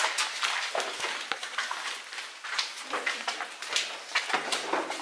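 Footsteps walking along a cellar corridor, about two steps a second.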